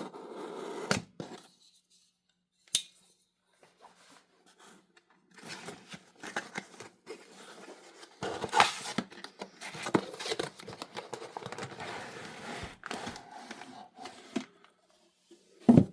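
Heavy packing tape on a cardboard box being cut through and the box worked open: sharp snips, with scraping and rustling of tape and cardboard.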